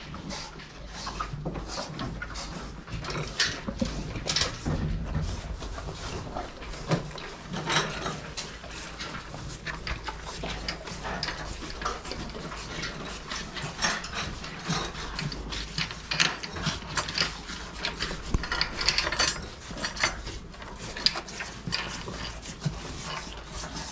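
Fattening calves licking rock salt and feed in their troughs: a dense, irregular rasping and clicking of rough tongues.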